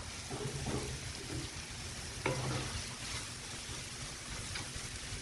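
Ghee sizzling on the hot steel flat-top griddle, with a sharp metal clack about two seconds in and a fainter tick near the end.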